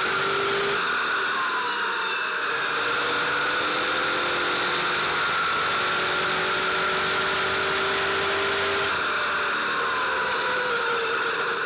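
Stadium Super Truck racing at speed, heard from inside the cockpit: a steady loud rush of engine, drivetrain and road noise, the engine's pitch slowly rising and falling with the throttle.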